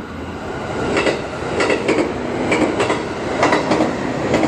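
JR Kyushu 783 series electric express train passing through a station at speed without stopping. Its wheels clack sharply over the rail joints in a quick, repeating series, some in close pairs, over a steady running rumble that swells about a second in as the cars draw level.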